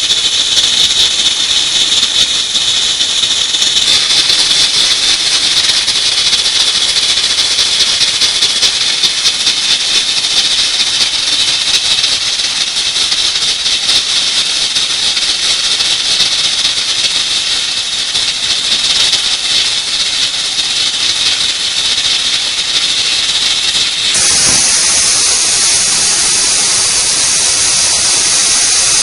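Pressure cooker whistle blowing steam: a continuous high hiss with a whistling edge, meaning the cooker is at pressure and venting. Its tone shifts about four seconds in, and in the last five seconds it turns into a brighter, slightly louder hiss.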